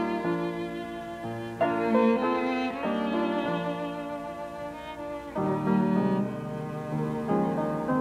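Background score of bowed strings, violin and cello, playing slow held notes that change every second or two.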